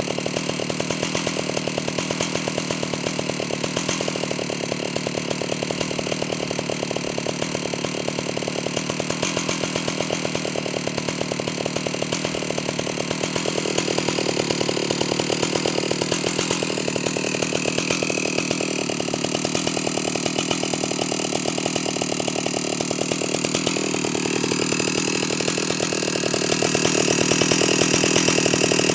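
Stihl 048 AV two-stroke chainsaw idling steadily on the ground, not cutting. It gets a little louder about halfway through and again near the end.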